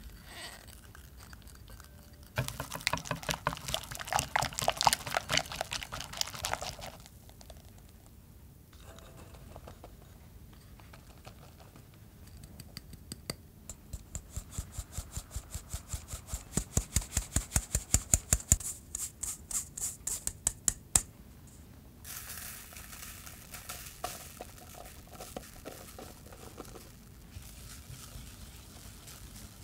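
Cooking sounds in a sequence. First a wire whisk beats egg-yolk batter against a glass bowl in a fast clatter. Then a mesh sieve is tapped about three or four times a second to shake cocoa powder and flour through, and finally a softer rustle as the whisk works the powder into the batter.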